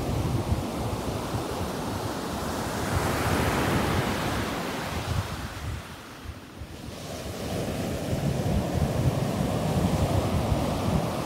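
Ocean surf breaking and washing up the beach, with wind rumbling on the microphone. The surf eases to its quietest a little past the middle, then builds again as the next wave breaks.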